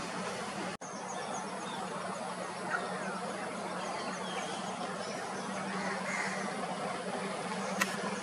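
Steady outdoor background noise: an even hiss with a constant low hum, a few faint high chirps, a brief dropout about a second in and one sharp click near the end.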